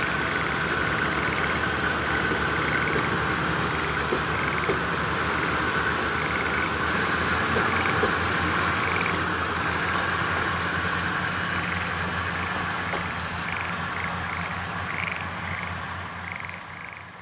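Kominato Railway diesel railcar's engine running as the train pulls away, under a steady chorus of frogs calling in short repeated notes. The whole sound fades out near the end.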